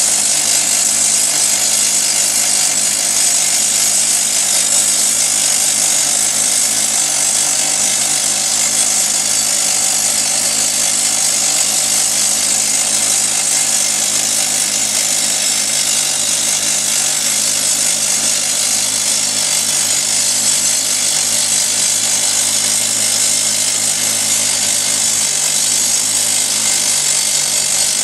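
Drillcom RD32 rock drill hammering steadily without a break, drilling a 70 mm hole with a button bit into hard grey granite; a loud, dense rattle with a strong high hiss.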